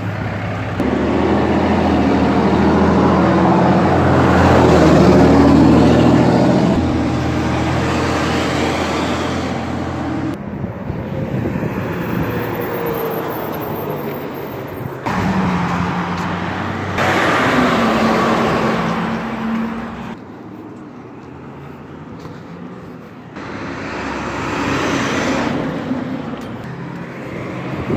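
Heavy diesel trucks and a school bus driving past on a street one after another, engines running loud and low, loudest a few seconds in. The sound changes abruptly several times, with a quieter gap about two-thirds of the way through.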